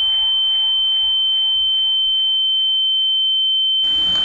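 A steady, high-pitched electronic tone, one pure pitch held without a break, with much fainter sound underneath that drops out about three and a half seconds in and comes back near the end.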